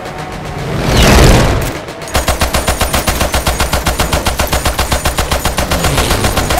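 A loud rushing whoosh swells and fades, then about two seconds in a machine gun opens up in sustained rapid automatic fire, roughly nine shots a second.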